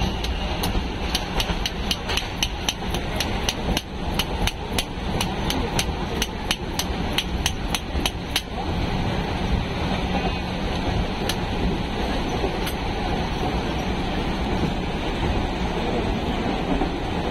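Steel spoon clinking rapidly against a steel tin as jhalmuri (spiced puffed rice) is tossed and mixed, about four clinks a second, stopping about eight seconds in. Under it is the steady running noise of the train carriage.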